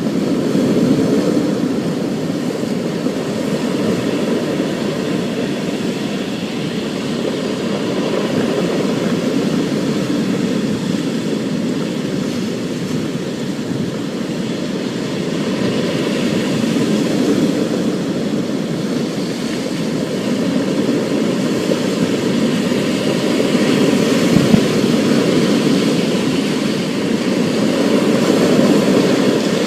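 Thunderstorm ambience: a steady, low rush of heavy rain and storm noise that slowly swells and eases, with one short click about twenty-four seconds in.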